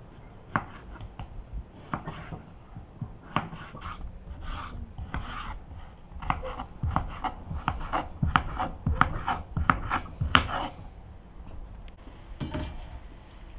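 Kitchen knife cutting a raw potato into cubes on a wooden cutting board: irregular knocks of the blade through the potato onto the board. They come faster and louder in the middle and stop about ten and a half seconds in.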